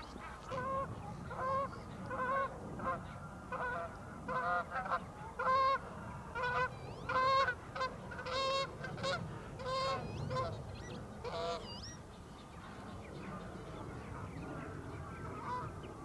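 Geese honking: a run of about a dozen loud honks, roughly one a second, stopping a little over two-thirds of the way through. Thinner, higher bird calls sound among the honks.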